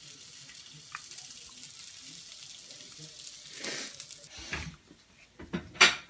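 Butter and sausages sizzling in hot frying pans; about three and a half seconds in, a cracked egg drops into the buttered pan and the sizzle swells briefly. A few sharp knocks follow near the end, the loudest just before it ends.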